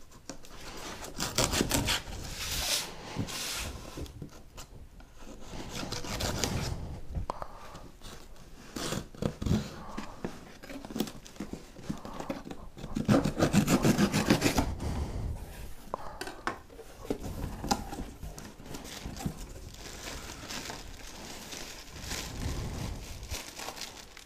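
Scissors scraping and cutting along the packing tape of a cardboard box, with cardboard rubbing and tearing as the flaps are worked open, then plastic wrap rustling near the end. The sounds come in irregular scrapes and rustles, the busiest stretch a little past the middle.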